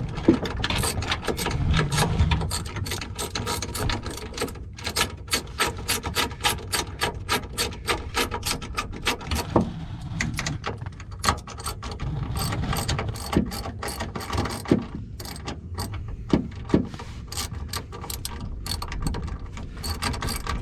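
Hand socket ratchet clicking in long runs of quick, even clicks as bolts are turned while a rear subframe brace is mounted.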